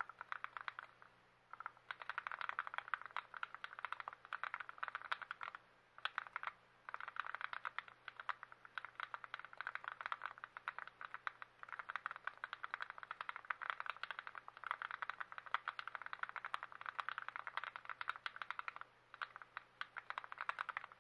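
Typing on a TX66 custom mechanical keyboard with lubed switches: rapid key clacks in runs of several seconds, broken by a few short pauses.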